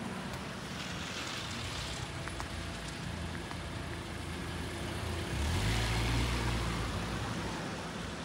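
Street traffic: cars passing with tyre hiss and engine hum. The loudest pass comes about two-thirds of the way through, when one vehicle's low engine rumble swells as it goes by close.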